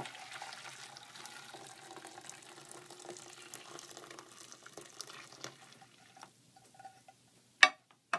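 Water poured from a cup onto a Nitinol heat engine's wheel, splashing into a stainless steel basin and thinning out after about six seconds. A single sharp knock near the end.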